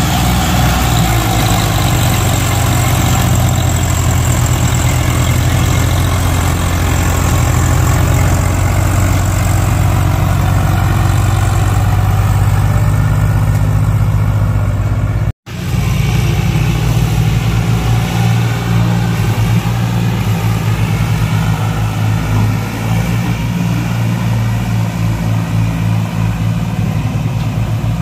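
Swaraj tractor's diesel engine running under heavy load, pulling a trolley loaded with logs through soft mud. A steady low engine note that drops out for an instant about halfway through.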